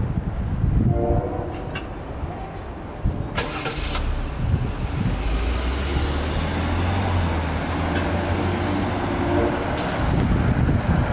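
Road traffic at a railroad crossing: car engines rumbling low and pulling away across the tracks from about four seconds in. There is a short pitched tone about a second in and a sharp clack a little after three seconds.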